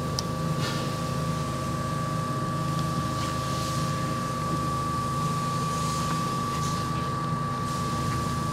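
Steady machine drone with a constant high-pitched whine running over it, unchanging throughout, with a few faint clicks.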